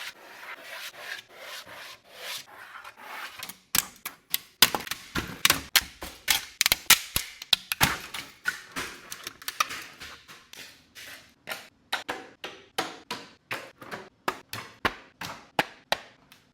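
3D printed plastic parts being handled and fitted together: soft rubbing and scraping at first, then a long run of sharp, irregular clicks and taps, a few each second.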